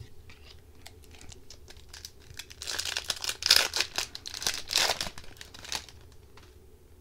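Foil wrapper of an Upper Deck hockey card pack being torn open and crinkled by hand: faint ticks at first, then a few seconds of loud crackling rustle.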